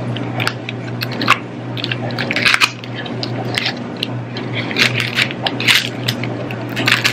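Clear plastic blister tray and thin cardboard candy box crinkling and crackling in the hands as the package is opened and the tray is pulled out, in irregular sharp crackles with a steady low hum underneath.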